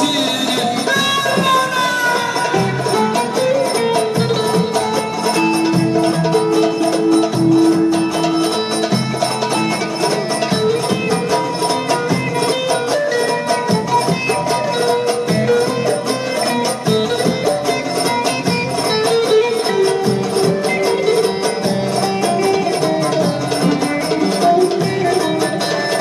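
Turkish folk dance music: a melody instrument playing a tune over a steady, dense percussion beat.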